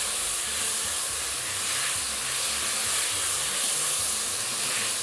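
Diced onion and mixed bell peppers sizzling steadily in a little oil in a pot as they are stirred with a spatula.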